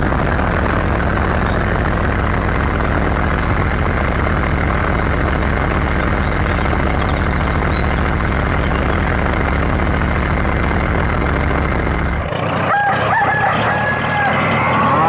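A steady engine-like rumble runs and cuts off about twelve seconds in, followed by a rooster crowing near the end.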